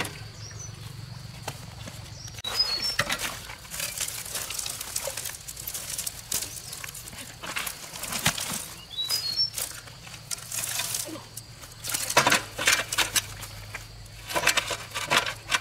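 Irregular bouts of splashing and sloshing in shallow water, loudest near the end, over a low steady hum, with a few short high chirps.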